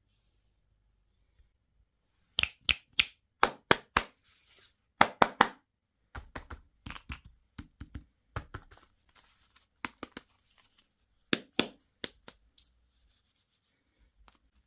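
Hands tearing open and crinkling candy packaging: a run of sharp crackles and clicks with stretches of rustling, starting about two seconds in and dying away near the end.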